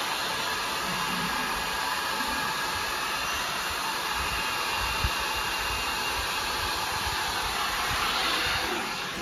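Small handheld electric hair dryer running with a steady whoosh, blowing on a dog's wet coat to dry it after a bath. It gets a little louder shortly before the end, then drops.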